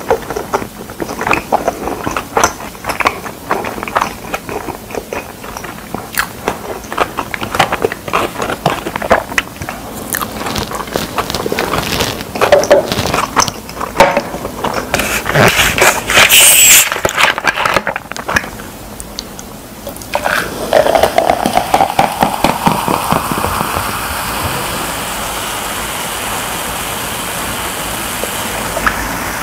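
Close-miked chewing and crunching of pizza, a dense run of small crackles and clicks for the first dozen seconds. About sixteen seconds in comes a sharp hiss as a plastic cola bottle is opened. From about twenty seconds in, cola is poured into a plastic cup, the pour rising in pitch as the cup fills, then a steady fizzing.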